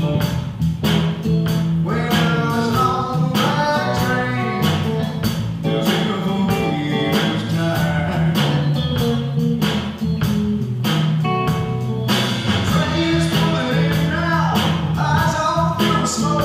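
Live band playing a blues-rock song: drum kit keeping a steady beat, bass guitar, electric guitar and a singer's voice.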